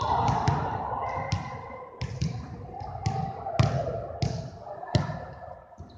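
Basketballs bouncing on a hardwood gym floor: about seven irregular, sharp bounces, each echoing in the large gym.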